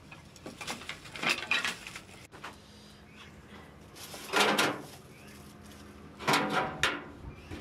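Sheet-metal charcoal grill rattling and scraping as it is handled, in three short bouts, the later two as its front drawer is worked.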